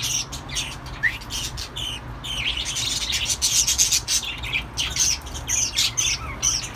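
Small pet parrots chirping and squawking: a rapid, busy run of short high calls, several a second.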